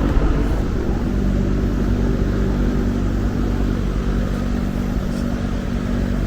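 Electric cooling fan running, a loud, steady hum over an even rush of air.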